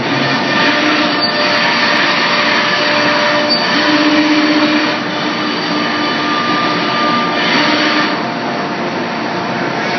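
Komo CNC router running: a steady loud machine noise with whining tones that start and stop every second or two, and brief surges of higher hiss.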